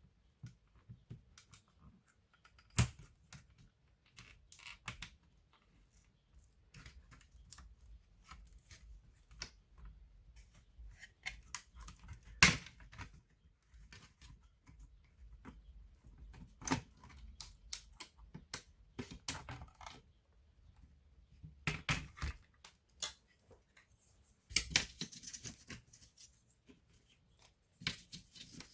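Irregular clicks, taps and knocks of a notebook's plastic casing and small parts being handled, with two louder clicks about 3 and 12 seconds in and a brief scraping rustle near the end.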